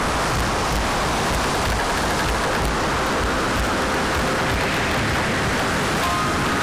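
Strong wind buffeting the microphone over the steady rush of choppy sea around a sailing yacht.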